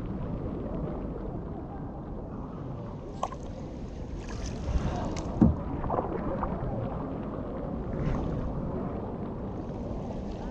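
Water sloshing and paddle splashes around a kayak, with a few short sharper splashes or knocks, the loudest about five and a half seconds in.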